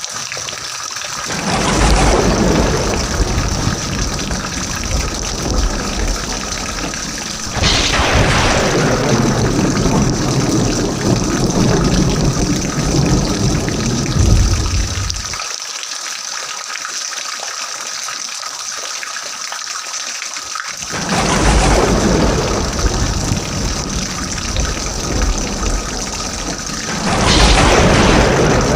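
Rain sound effect: heavy rain falling with a steady hiss, broken four times by thunder that sets in suddenly and rolls on for several seconds. The low rumble cuts out abruptly about halfway through and comes back with the next peal.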